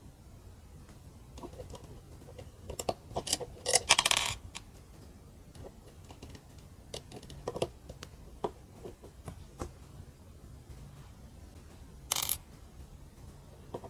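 Small plastic mini building bricks clicking as pieces are handled and pressed together: scattered light clicks, with a denser rattle about four seconds in and a short one near the end.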